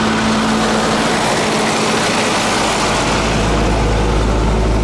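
Tractor engine running steadily under a loud hiss of water jetting from the Vulkan 6 applicator's injection nozzles as the lines are flushed. The engine's low drone grows stronger about three seconds in.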